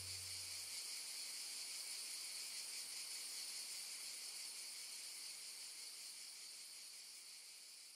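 Steady high-pitched hiss that slowly fades out, after the last low note of the music dies away about a second in.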